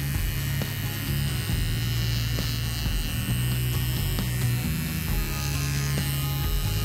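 Small cordless pet clipper buzzing steadily as it trims the hair between a dog's paw pads.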